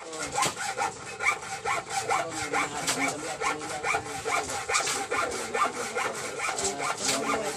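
Steady rhythmic rasping strokes, about four a second, like something being scraped or sawn by hand.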